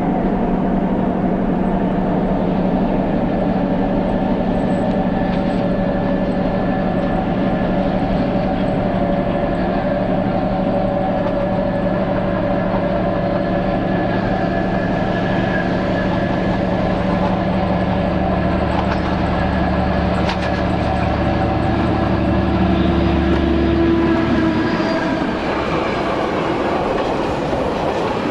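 Two DR class 120 diesel locomotives, each with a Kolomna 14D40 two-stroke V12 engine, running as they approach with a freight train. Their steady drone grows louder until they pass, then box wagons roll by with wheel clatter near the end.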